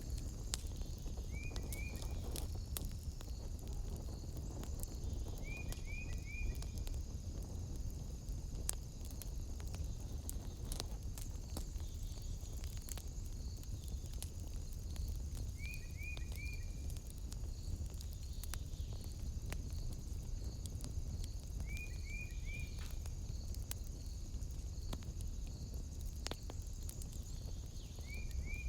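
Wood fire burning in a fireplace: a steady low rumble with scattered sharp crackles and pops. Over it, night insects keep up a steady high trill, and short chirps of two or three quick notes repeat about every six seconds.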